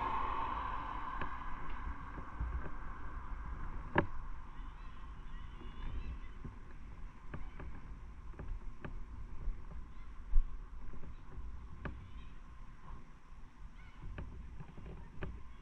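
Motorcycle riding noise: a steady low rumble of wind and road on the microphone, with scattered sharp knocks or clicks, the strongest about four seconds in.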